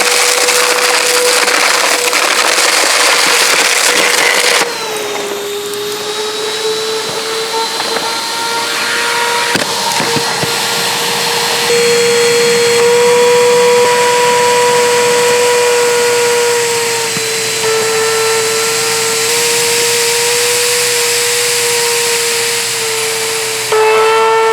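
Insignia bagless upright vacuum cleaner's motor running with a steady high whine and a rasping, grinding noise over it. About five seconds in, the rasping stops and the whine drops in pitch, then slowly climbs back. The tone of the whine shifts abruptly a few more times.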